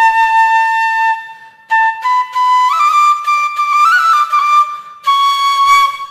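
Bamboo flute (bashi) playing a slow melody as background music. Long held notes are broken by short breath pauses, and the tune climbs in small steps around the middle, then settles back.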